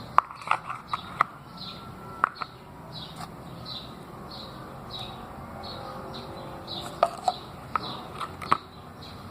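Sharp irregular clicks and knocks of a utensil against the bowl as the slime is stirred, over a bird's short chirp repeating about twice a second.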